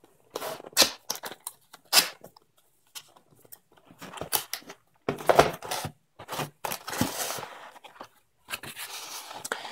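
Cardboard box being opened by hand: flaps and panels scraping and rubbing in irregular stretches, with a couple of sharp clicks about one and two seconds in.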